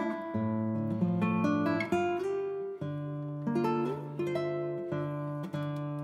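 Background music: a guitar playing plucked and strummed chords, with the notes changing every second or so.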